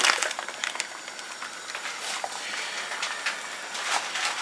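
Pot of light soup simmering on the stove, a steady hiss with scattered small pops, after a brief crinkle of a plastic bag of frozen crushed ginger at the start.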